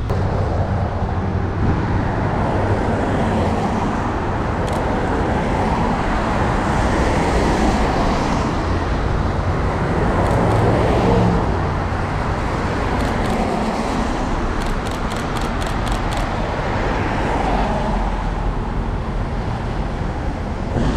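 Street traffic on a wet road: cars passing with the hiss of tyres on wet asphalt, swelling and fading as each goes by, over a low rumble of wind on the microphone.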